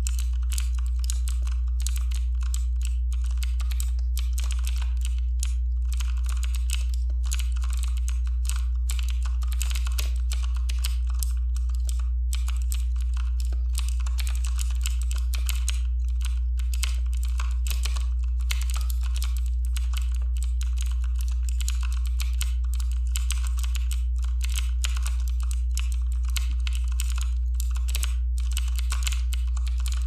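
Continuous fast typing on a computer keyboard: a dense run of key clicks with brief gaps now and then, over a steady low hum that is louder than the typing.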